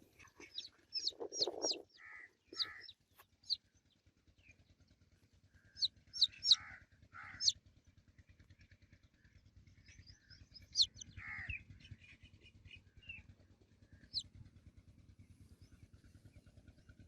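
Baby chicks peeping: short, high, downward-sweeping chirps in three clusters, with a few lower, rougher calls among them.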